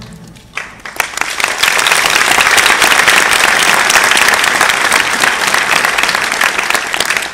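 Applause from many hands clapping: a few scattered claps about half a second in, swelling within a second into dense, steady clapping that starts to thin near the end.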